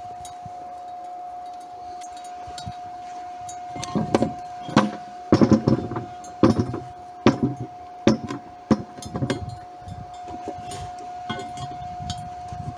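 Irregular metal knocks and clinks, clustered from about four to ten seconds in, over a steady high hum.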